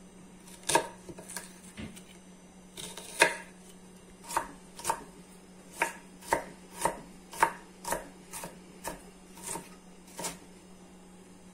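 Kitchen knife dicing an onion on a wooden cutting board: a string of sharp, uneven knocks, one or two a second, that stops shortly before the end.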